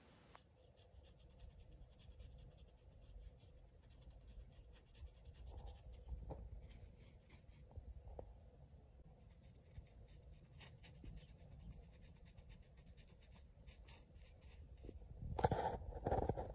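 A paintbrush brushing black paint into the carved grooves of a wooden board, making faint, rapid scratchy strokes. Near the end there is a louder burst of handling noise.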